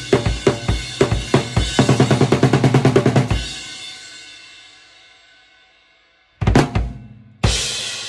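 Drum kit with a Tama Woodworks 14x8 snare being played: a steady beat of kick and snare at about four hits a second, then a fast fill of about nine strokes a second that ends on a cymbal ringing out and fading away. Two loud crash hits with ringing come near the end.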